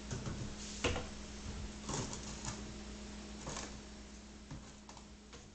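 Scattered light knocks and clicks of containers being handled and set into a wooden kitchen cabinet, about six over several seconds, over a steady low hum.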